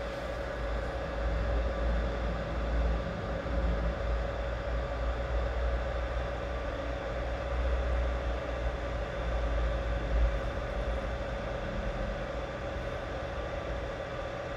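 BGA rework station running while it reflows a laptop GPU's solder balls: a steady blower rush with a steady mid-pitched hum, over an uneven low rumble.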